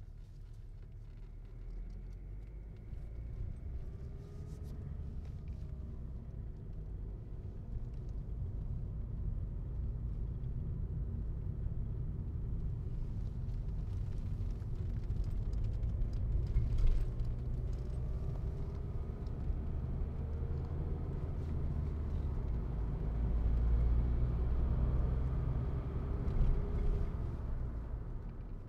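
Car driving slowly, heard from inside: a steady low rumble of engine and road noise that grows gradually louder, with the engine's pitch rising and falling several times as it picks up speed and changes gear.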